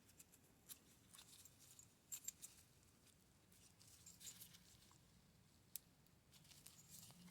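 Faint, scattered small metallic clicks and brief scrapes of a shim and lock tools worked against a Yale pin-tumbler lock cylinder while trying to shim the core out. There is a cluster of clicks about two seconds in, a short scrape around four seconds, and one sharper click near six seconds.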